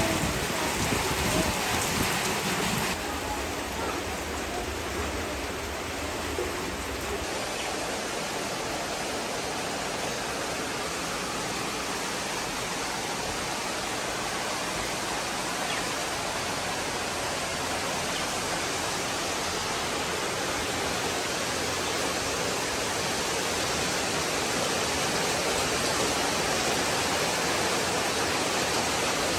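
Steady heavy rain falling, an even hiss with no single drops standing out; its tone shifts slightly about three seconds in.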